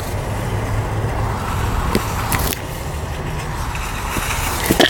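Car cabin noise: a steady low rumble of the car heard from inside, with a few brief clicks and knocks.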